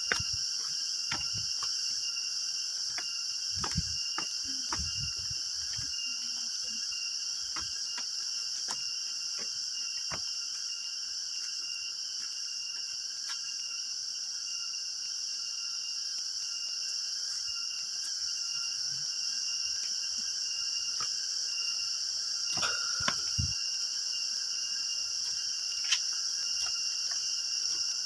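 Steady, high-pitched chorus of insects droning without a break, with a few scattered knocks, the loudest cluster near the end.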